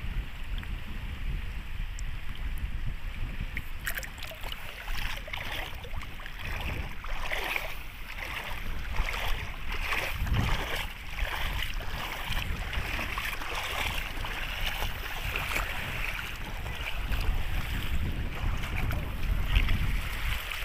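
Sea water washing and splashing at the shore, with wind buffeting the microphone as a low rumble. The wash of the water comes in from about four seconds in.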